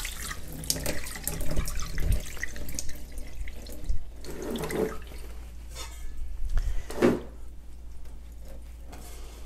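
Water dripping and draining from freshly rinsed rice in a metal mesh strainer into a stainless-steel sink, the tap just turned off. A few light knocks and clinks come as the strainer and pot are handled.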